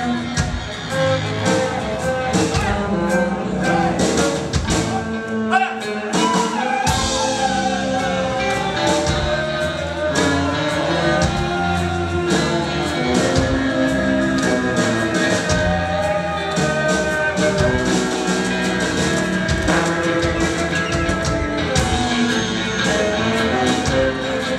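Rock band playing live in an instrumental passage: drums, electric guitar, bass and keyboards, with a wavering lead melody over them.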